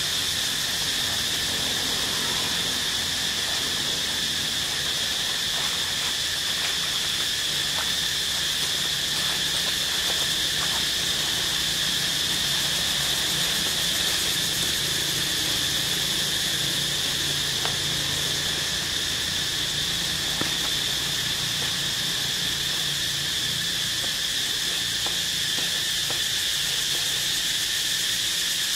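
Steady chorus of forest insects such as cicadas or crickets: a continuous high-pitched buzzing drone that holds two constant pitches, one high and one lower.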